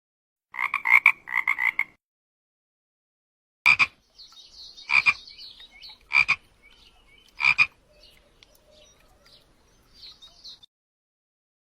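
Frog croaking: a quick run of about seven croaks, then after a pause four single croaks a little over a second apart, over faint high-pitched chirping.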